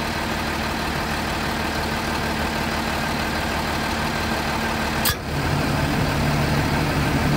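Tiffin motorhome's diesel engine idling steadily. About five seconds in comes one short, sharp burst, and after it the engine's steady tone drops lower and gets a little louder. This is the noise the owner is recording to have it identified.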